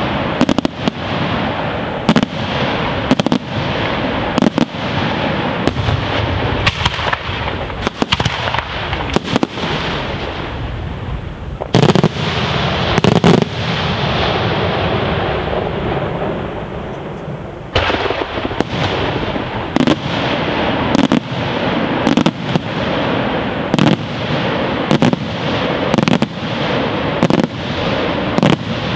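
Daytime aerial fireworks: shell bursts and salutes banging in rapid succession over continuous crackling. The bangs thin out to a few big ones for several seconds in the middle, then resume thick and fast from about eighteen seconds in.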